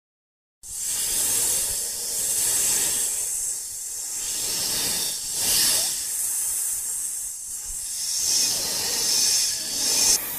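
A loud hissing noise that starts abruptly after a moment of silence. It is strongest in the high treble and swells and eases several times.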